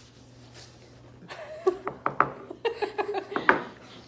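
A woman laughing, a run of quick short laughs lasting about two seconds, starting just over a second in.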